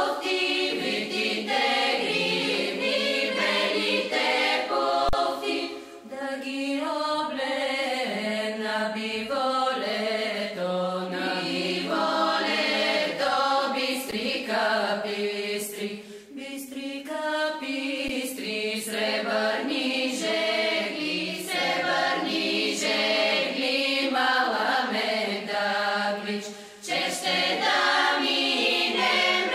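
Background music of a choir singing in long, held phrases.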